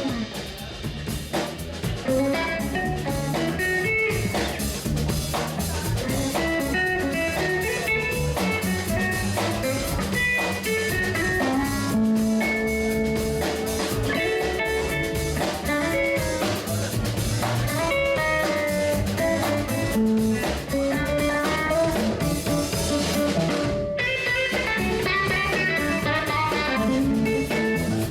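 Background music: a blues-style electric guitar with a drum kit.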